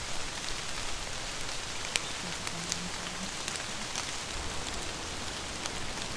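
Steady rain falling, with a few sharper drop ticks here and there as the shower picks up.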